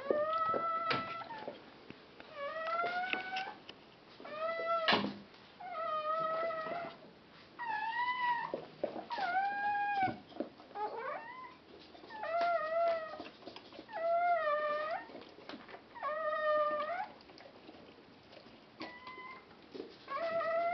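Newborn Chodsky pes puppy crying: a string of about a dozen short high-pitched squeals, roughly one every second or two, each bending up and down in pitch. A few short rustles from the bedding come between the cries.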